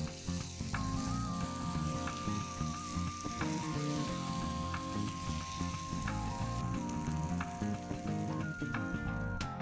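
Oil sizzling in a nonstick pan, a steady hiss that thins out about seven seconds in, under background music with long held notes.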